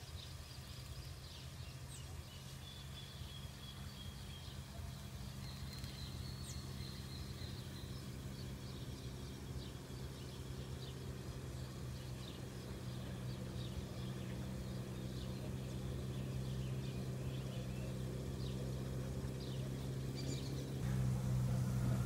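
Scattered short bird chirps and a few drawn-out calls over a steady low engine hum that slowly grows louder as a vehicle draws near.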